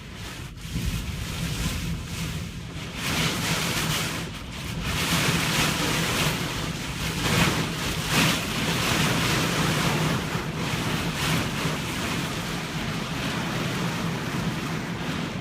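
Strong wind and rough water: a loud rushing noise that swells and eases in gusts, with wind buffeting the microphone and a faint steady low hum underneath.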